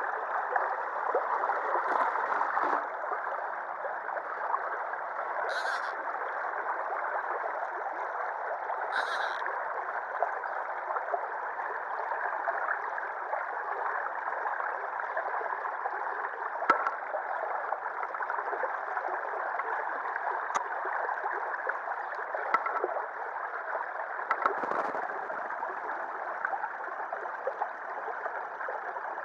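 Shallow river water running steadily over and along a concrete sill, a continuous rushing gurgle, broken by a few short knocks and splashes.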